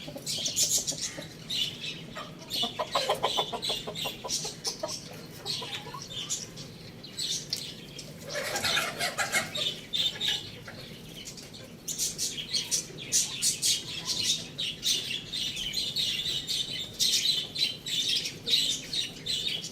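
Pet birds calling: a constant rapid, high chirping and chattering typical of budgies, mixed with chicken clucks, and one louder call about eight seconds in.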